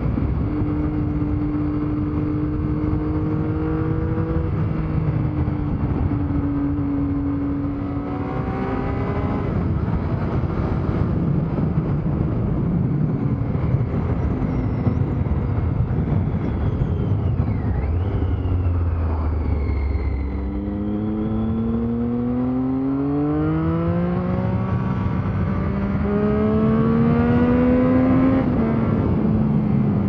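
A 2010 Triumph Street Triple R's 675 cc inline three-cylinder engine heard while riding, with wind and road noise. At first it holds a steady cruising note. Later the revs climb in long rising sweeps as it accelerates, then drop near the end. The exhaust note comes partly through a Leo Vince aftermarket exhaust and partly through the stock exhaust.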